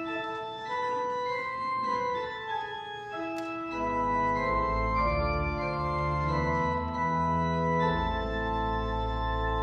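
Organ music: held chords moving slowly from one to the next, with deep bass notes joining about four seconds in and the sound getting fuller.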